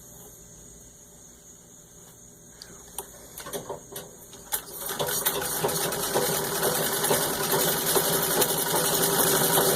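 Antique 1914 Singer 66-1 treadle sewing machine stitching through six layers of denim: after a few single clicks it starts up about five seconds in and runs steadily at full speed with a fast, even rattle.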